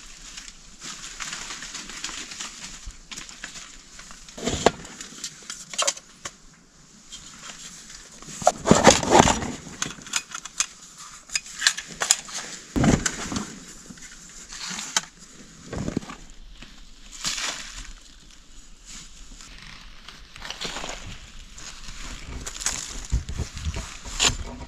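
Dry leaves rustling and camping gear knocking and clattering as it is handled, in irregular bursts. Near the end, a run of dull thuds from a machete blade chopping into earth.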